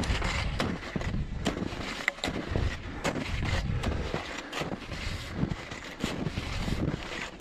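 Hunting skis crunching and swishing through snow in irregular strides, with wind rumbling on the microphone.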